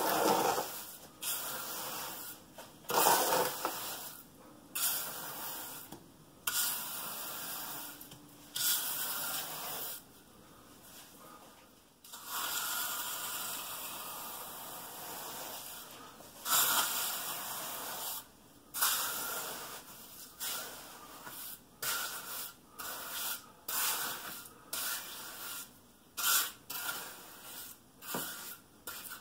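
Steel trowel scraping and spreading stiff wet concrete mix in a countertop mold, in a series of short scraping strokes with a longer continuous scrape about twelve seconds in.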